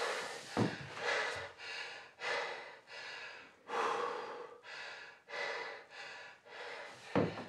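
A man breathing heavily and fast, gasping in and out in short breaths, about ten of them, with a short low thump about half a second in and another near the end.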